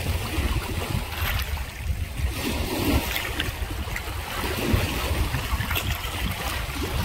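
Wind buffeting the microphone: a steady low rumble with a rushing hiss over it.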